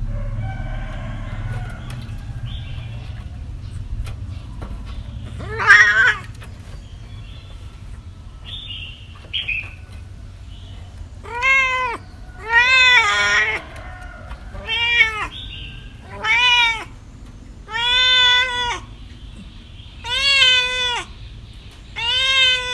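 A cat meowing. One meow comes about six seconds in, then from about halfway a run of seven meows follows, one roughly every second and a half, each rising and falling in pitch.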